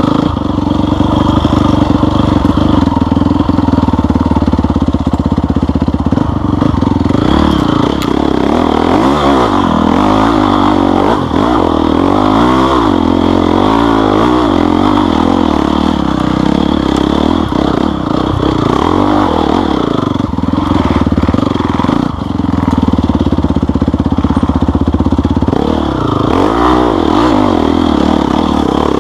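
Off-road vehicle engine running under load, its revs rising and falling several times in a row in the middle stretch and once more near the end.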